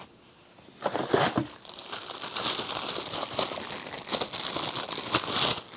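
Clear plastic packaging bag crinkling and rustling as a wrapped vacuum part is handled and unwrapped. It starts about a second in and runs as a dense crackle until just before the end.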